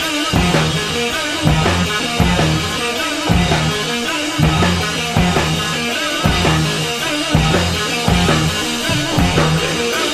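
Rock music with a steady drum-kit beat, bass and guitar.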